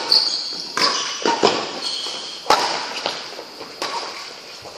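Badminton rackets striking a shuttlecock in a singles rally: about four sharp smacks roughly a second apart, echoing in the large hall, with short high squeaks between them. The hits stop after about two and a half seconds.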